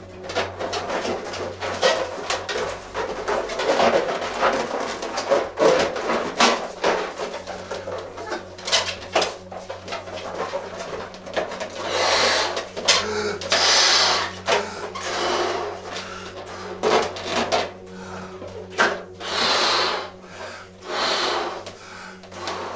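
Latex balloons being inflated by mouth and knotted together in pairs: the rubber squeaks and rubs against itself, with clicks as it is handled. In the second half come several long breaths blown into a balloon.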